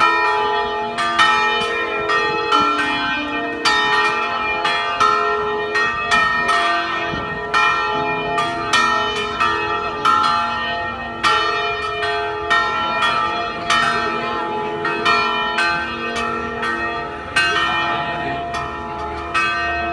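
Several church bells of different pitches ringing a festive peal, struck about once a second, each stroke overlapping the long ringing of the ones before.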